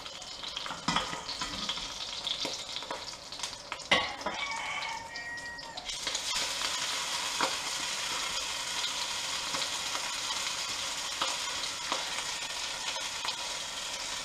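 Floured cockerel pieces sizzling as they are laid into hot pork-belly fat in a casserole pot. Light clicks of a spoon in the pan come first, with one sharp knock about four seconds in. The sizzle jumps louder about six seconds in as the meat goes in and then holds steady.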